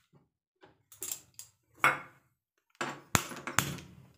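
Gas hob burner being lit: a few sharp, irregularly spaced ignition clicks until the burner catches.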